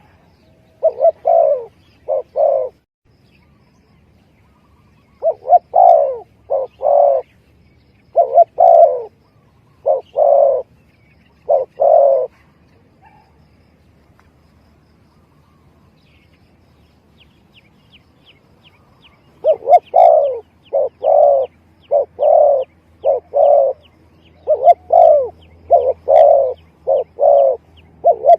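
Spotted dove (tekukur) cooing: its repeated phrases of short coo notes come in quick runs, fall silent for several seconds partway through, then start again. The calls are played as a lure call for tekukur.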